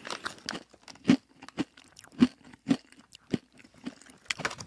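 Crunchy granola being chewed close to a microphone, about two crunches a second.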